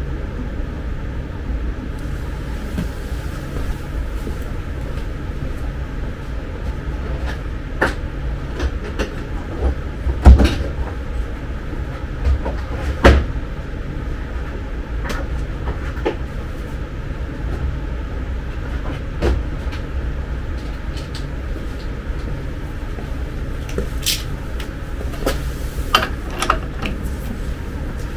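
Scattered metal clicks and knocks from hand tools and parts at a power wheelchair's front caster housing as it is opened up. Two louder knocks come about a third of the way through, over a steady low hum.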